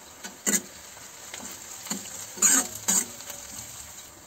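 A metal ladle scraping and knocking against an iron kadhai as onions and spices are stirred while frying in mustard oil, over a steady low sizzle. There are several scrapes, the loudest a little past halfway.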